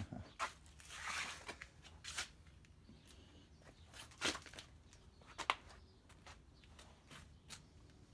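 Scattered light clicks and knocks with a brief rustle about a second in, as of things being handled and moved about; the sharpest clicks come about four and five and a half seconds in.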